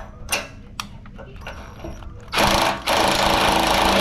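A few sharp ratchet-like clicks, then about two seconds in a power tool starts and runs loud and steady, with a short break, as the bolts are tightened.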